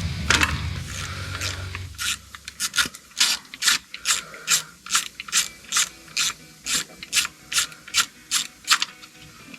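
Ratchet wrench clicking in quick back-and-forth strokes, about three a second, as a fastener is worked on the engine; it starts about two seconds in and stops shortly before the end.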